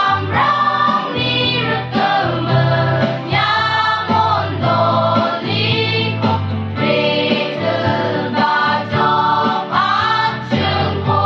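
Mixed church choir singing in parts into stage microphones, the voices holding long notes, with steady low notes sounding underneath.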